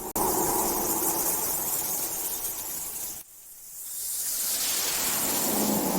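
Rushing-air whoosh sound effect, a steady hiss like a strong gust of wind, which cuts off suddenly about three seconds in and then swells back up.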